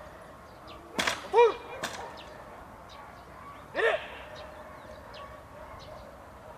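Agility seesaw plank banging down onto the ground with a sharp crack about a second in, then a lighter knock just after. Two short animal calls, one right after the crack and one about four seconds in.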